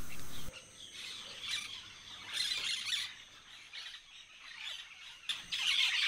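Several birds chirping and calling, scattered at first, then a dense burst of chatter starting about five seconds in.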